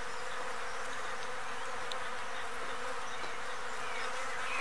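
Bees buzzing in a flowering bay laurel, a steady hum of many insects foraging on its blossoms.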